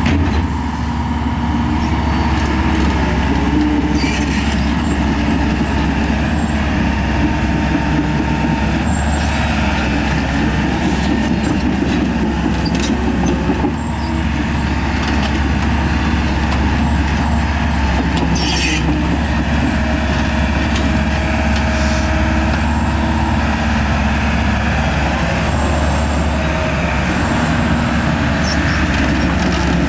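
Diesel engine of a 2019 Kobelco SK210LC-10 excavator running steadily, with a couple of brief knocks from the machine.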